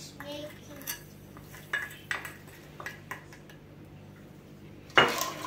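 A spatula tapping and scraping sugar off a serving bowl into an aluminium cooking pot of milk, with a few light taps. About five seconds in there is one loud knock with a ringing tail.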